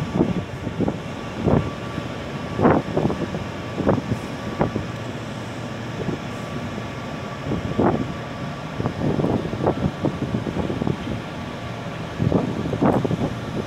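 Steady mechanical drone of coal-port loading machinery, with a faint steady hum, while wind buffets the microphone in irregular gusts, about one every second or two.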